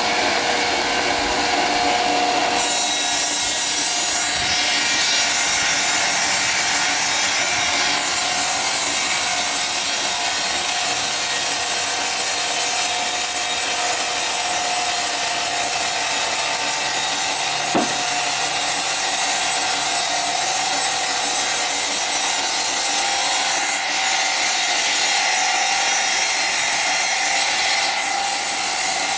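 Sawing machine cutting ironwood: a steady hiss of the blade through the hard wood, with a faint ringing tone, running on without a break and changing character a few times as the cut goes on.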